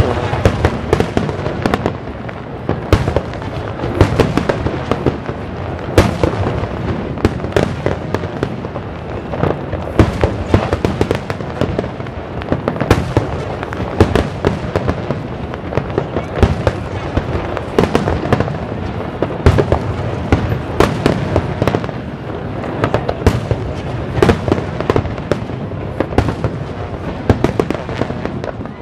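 Aerial fireworks display going off in a dense barrage: many sharp bangs every second, some much louder than others, over a continuous rumble of overlapping bursts.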